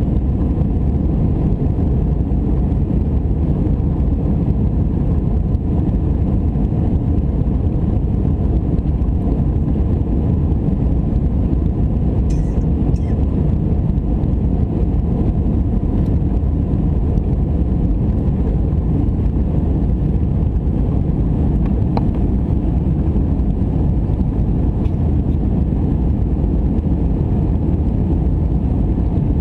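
Airbus A319 cabin noise in the climb: a steady, dull rumble of the engines and the air rushing past the fuselage. A few faint ticks sound over it.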